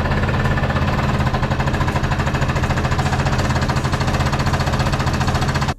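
Car engine idling with a lumpy, fast-pulsing beat. It cuts off abruptly at the very end.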